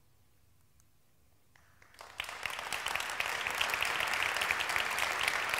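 Near silence for about two seconds, then an audience applauding steadily.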